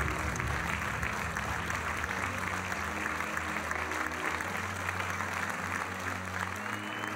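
Large theatre audience applauding in a sustained standing ovation, a dense steady clapping, over a background music track with a low bass line.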